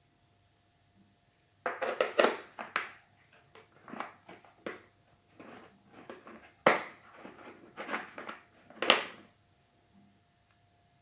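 Irregular handling noises: rustling and crinkling with scattered clicks, including a sharp click about two-thirds of the way through.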